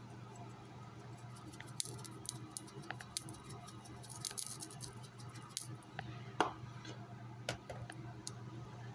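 Salt shaker being shaken over roasted peanuts on a ceramic plate: faint, irregular ticks and patter of salt grains, over a steady low hum.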